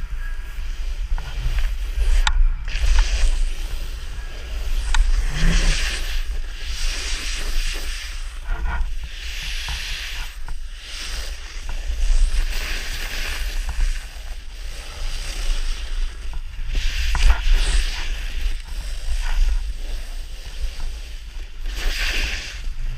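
Snowboard carving and sliding through fresh snow: a hiss that swells and fades every second or few, over a steady low rumble of wind on the action camera's microphone.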